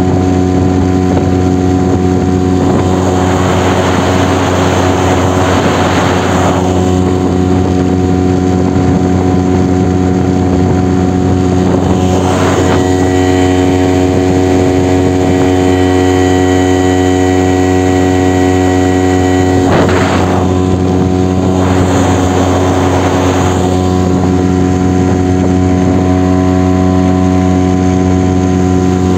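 Small outboard motor running steadily as the boat moves along under way, with a few passing swells of hiss over the engine's even drone.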